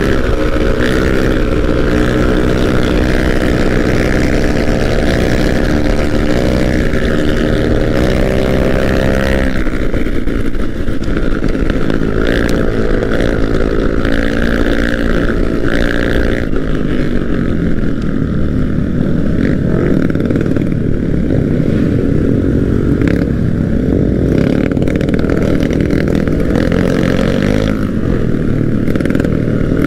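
Motor scooter engine running while riding, its pitch climbing and dropping several times in the first half as the throttle changes. Steady wind and road noise over the helmet-mounted camera's microphone.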